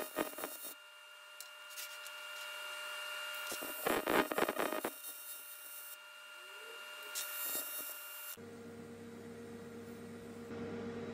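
TIG welding arc on aluminium: a steady buzzing hum with crackling that bunches up at the start and again about four seconds in. Near the end the sound switches abruptly to a lower, steady hum.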